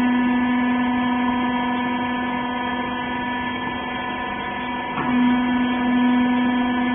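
Hydraulic power unit of a wiper baler running with a steady hum. A short click comes about five seconds in, after which the hum is louder.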